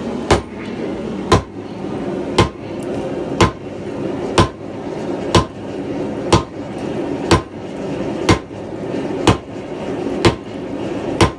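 Sledgehammer blows on a glowing steel canister billet resting on an anvil, about one strike a second, each a sharp ringing impact. The blows are forge-welding a can of 1084 steel powder and ball bearings at welding heat into a solid bar of canister Damascus. A steady low rush runs under the strikes.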